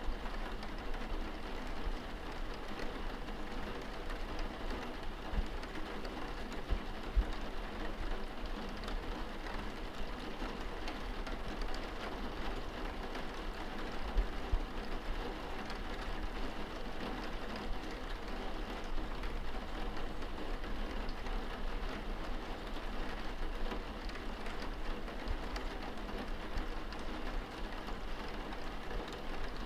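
Rain falling steadily on window glass, heard from indoors as an even hiss of drops, with a couple of louder taps.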